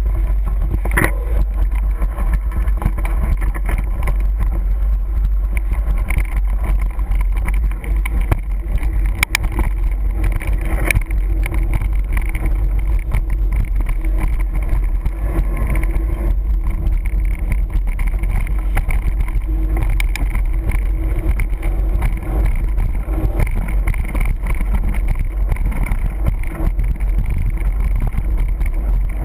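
Wind rushing over the microphone of a camera riding on a mountain bike coasting downhill on rough pavement: a loud, steady rumble with tyre noise, broken by a few sharp clicks.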